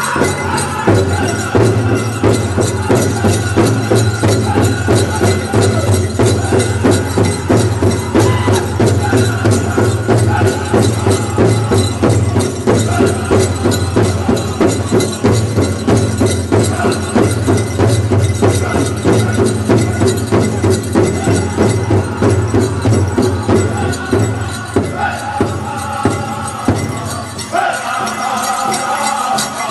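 Powwow host drum group: a large drum struck in a steady, driving beat under high-pitched group singing, for the chicken dance. Near the end the drumming drops back and the singers' voices come up stronger.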